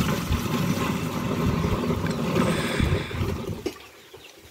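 Water poured from a plastic jerrycan into a knapsack sprayer's plastic tank, a steady splashing rush that dies away about three and a half seconds in as the pouring stops.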